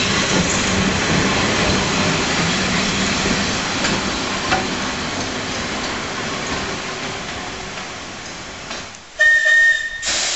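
Manx Electric Railway tramcar and open crossbench trailer rolling past close by: steady wheel-on-rail rumble and hiss that slowly fades as they move away, with a faint click about halfway. Near the end the sound breaks off and a short, loud, high whistle-like tone sounds for under a second.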